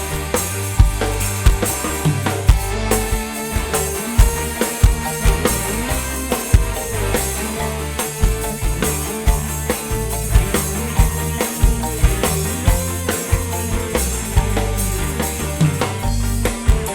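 Dangdut koplo band music played loud through a large outdoor sound system, with a driving drum rhythm and heavy bass.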